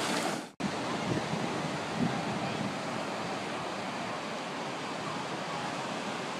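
Ocean surf washing ashore, with wind rushing over a phone microphone as a steady roar. A brief dropout about half a second in, where one clip cuts to the next.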